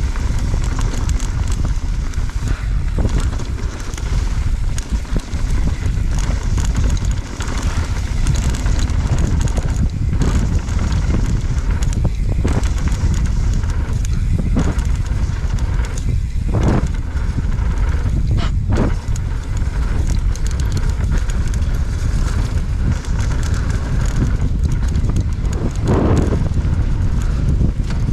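Mountain bike riding a rough trail, heard from a helmet chin-mounted camera: steady wind rumble on the microphone with the bike clattering over bumps, and several sharper knocks in the second half.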